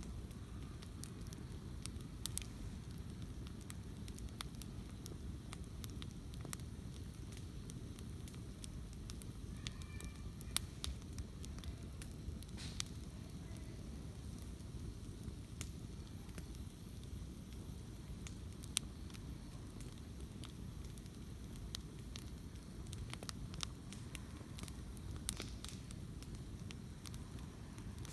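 Wood campfire burning, with irregular sharp crackles and pops, a few louder snaps, over a steady low rumble.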